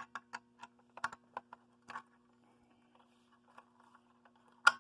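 Light irregular clicks and taps from handling a Notifier BGX-101L fire alarm pull station as a key is fitted into its lock, with one sharper click near the end. A faint steady hum runs underneath.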